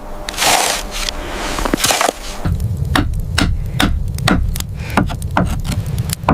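A noisy rustle, then a low steady rumble sets in about two and a half seconds in, with sharp knocks about two a second over it.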